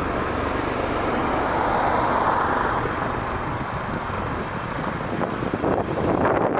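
Westland Lynx helicopter's twin turboshafts and rotor running, a steady noise that swells about two seconds in, with wind buffeting the microphone near the end.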